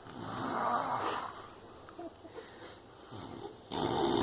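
A drunk person snoring in sleep: two long snoring breaths, one in the first second and a half and another near the end, about three and a half seconds apart.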